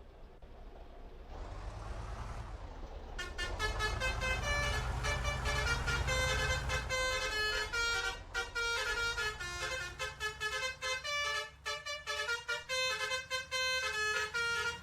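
A bus engine running and growing louder, then from about three seconds in a Basuri telolet musical horn plays a fast melody of stepped, multi-tone notes over the engine's low rumble.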